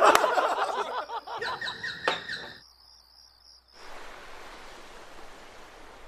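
Rhythmic chirping of night insects while voices and laughter fade out. About four seconds in, the chirping gives way to a steady, even hiss of outdoor ambience.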